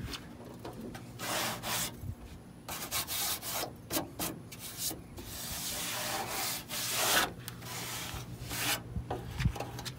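Hands rubbing and scraping over the sheet metal around the Dodge Ram's radiator support, in irregular bursts lasting up to a couple of seconds, with a few light knocks.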